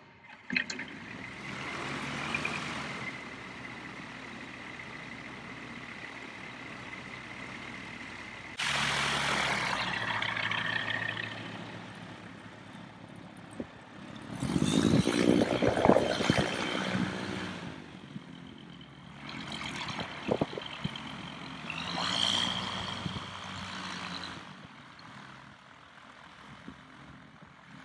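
Sling 2 light aircraft's Rotax 912 engine running at taxi power as the plane moves off across the apron. The note steps up suddenly about a third of the way in and swells loudest about halfway through, then fades as the plane moves away.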